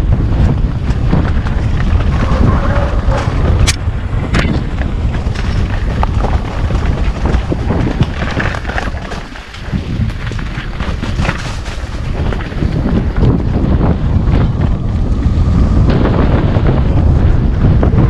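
Mountain bike riding down a rough singletrack, with wind buffeting the onboard microphone and many short clicks and knocks from the bike clattering over the ground. The noise dips briefly about halfway through.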